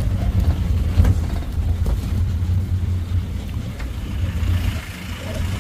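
Engine and road noise of an open-top safari canter truck driving along a forest track, heard from on board, with a couple of short knocks about one and two seconds in.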